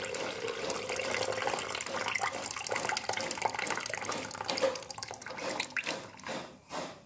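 Tamarind water being poured into a pan of raw fish in a ground coconut-spice paste: a steady splashing pour that thins out into a few separate drips and clicks near the end.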